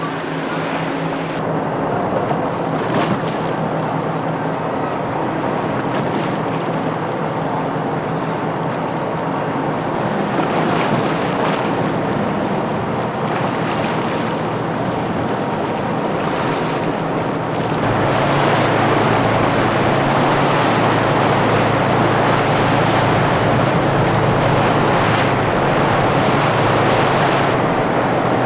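Wind and rushing, splashing sea water with a boat engine droning steadily underneath. About two-thirds of the way through, the engine drone gets louder and lower.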